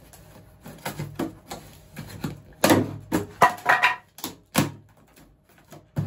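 A cardboard power-tool box and its plastic strapping being tugged at and shifted on a wooden table: a run of knocks, scrapes and rustles, busiest and loudest around the middle.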